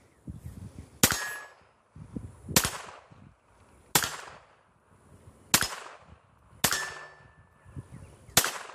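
Six shots from a Glock 42 .380 ACP pistol, fired at an unhurried pace about a second and a half apart. After the first and fifth shot a brief ringing tone follows, typical of a bullet hitting a steel target.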